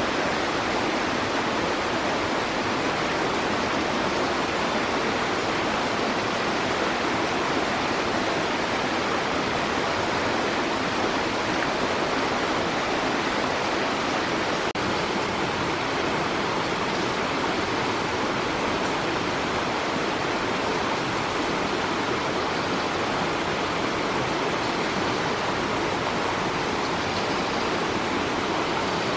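Steady rushing of flowing stream water, an even wash of noise with no breaks.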